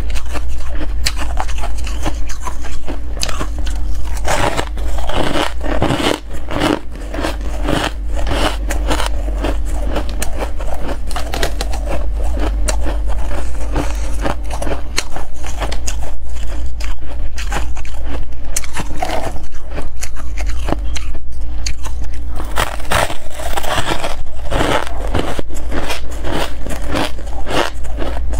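Close-up crunching of frosty white ice, bitten and chewed: a loud, dense, unbroken crackle.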